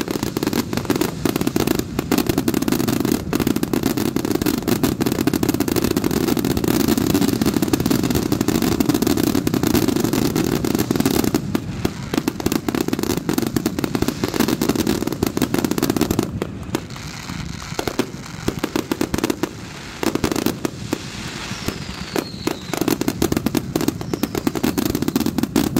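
Fireworks finale barrage: a dense, rapid, continuous volley of bangs and crackle from many aerial shells and cakes firing and bursting at once. It thins briefly about two-thirds of the way through, then builds again.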